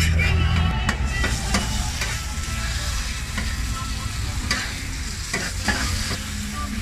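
Chopped meat and chorizo sizzling on a hot flat steel taco griddle, with a knife blade scraping and tapping on the steel now and then as it is turned and chopped. A low steady hum cuts off under a second in.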